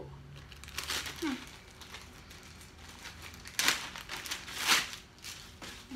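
Clear plastic poly bag crinkling as it is handled and opened around a folded fabric tote, with two louder crinkles about three and a half and four and a half seconds in.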